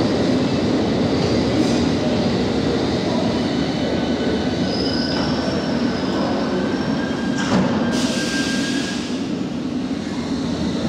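London Underground S stock trains at a subway platform: a steady rumble with a faint thin squeal, then a sharp clack about seven and a half seconds in followed by a burst of hiss. Near the end a rising whine sets in as a train pulls away, accelerating quickly.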